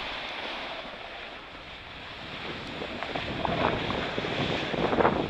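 Wind rushing over the microphone while sliding down a ski slope, with a scratchy scraping of edges on snow that grows louder over the last couple of seconds.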